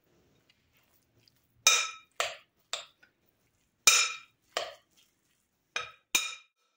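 A metal spoon clinking against the side of a glass mixing bowl while stirring damp bulgur. There are about seven short, ringing clinks in uneven groups, with near silence between them.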